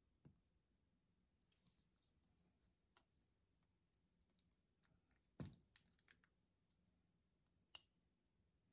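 Faint, irregular light clicks and taps of handling on a hard surface, with two sharper knocks about five and a half seconds in and near the end.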